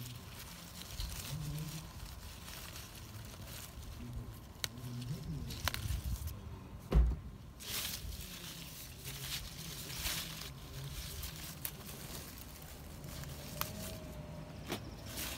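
Strawberry leaves rustling and being handled as a gloved hand parts the plants, with scattered light clicks and a dull thump about seven seconds in.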